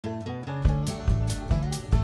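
Intro music: pitched notes over a steady drum beat that comes in just over half a second in, at a little over two beats a second.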